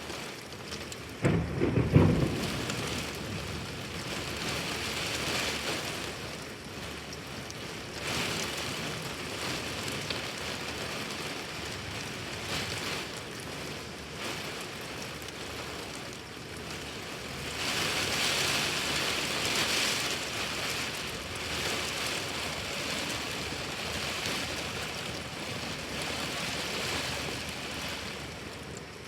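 Heavy tropical rain pouring down in a steady wash that swells in waves during a thunderstorm. About a second in there is a brief loud low boom.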